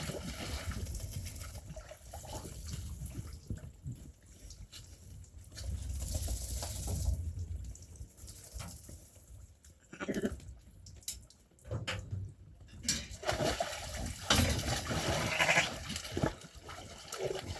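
Sheep bleating now and then over a low rumbling background with scattered knocks.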